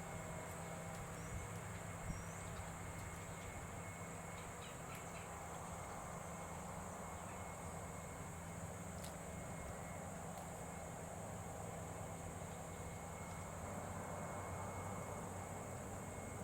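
Quiet outdoor background: a steady high hiss and a faint low hum, with two short chirps about one and two seconds in. The siren is not sounding.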